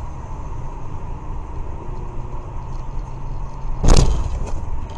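Steady road and engine rumble inside a moving car, picked up by a dashcam, with one loud sudden bang about four seconds in, followed by a couple of smaller knocks.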